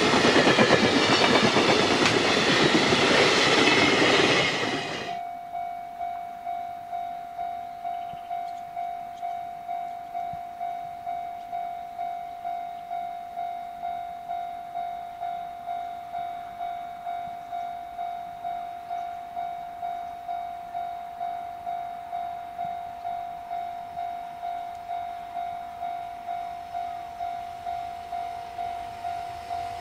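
Container freight wagons rolling past on the rails, which cuts off suddenly about five seconds in. Then an electronic level-crossing warning bell rings a single steady tone, about one and a half dings a second, signalling an approaching train.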